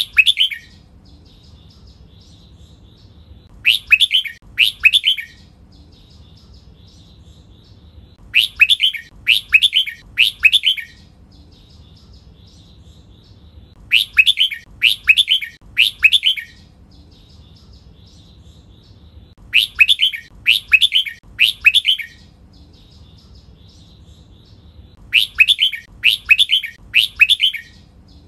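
Red-whiskered bulbul singing its loud whistled song in repeated bursts, usually three quick phrases to a burst, with a new burst every five to six seconds. Faint high twittering runs in the gaps between the bursts.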